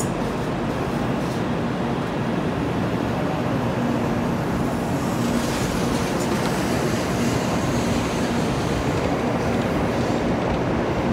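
Shinkansen bullet train rolling slowly along the platform, a steady rumble of its running gear with a faint steady hum.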